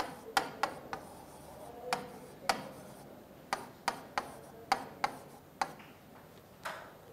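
Marker writing on a whiteboard: a dozen or so sharp, irregular taps and short scrapes as the letters are written.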